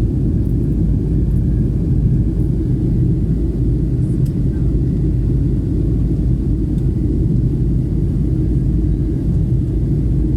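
Steady low rumble of an airliner's jet engines and airflow, heard from inside the cabin, holding an even pitch and level throughout.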